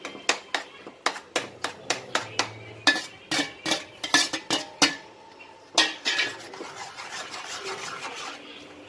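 A spoon knocking and scraping against a steel bowl and kadhai as grated boiled potato is tipped into thick pav bhaji, a quick run of sharp metallic clinks. About six seconds in the clinks give way to a softer scraping as the spoon stirs the potato into the bhaji in the pan.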